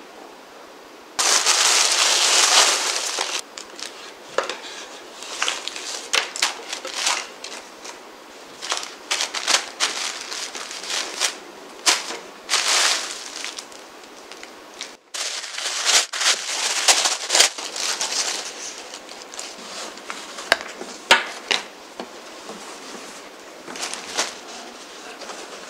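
Gift packaging being unwrapped by hand: crinkling and rustling of wrapping with many sharp crackles, loudest for a couple of seconds near the start.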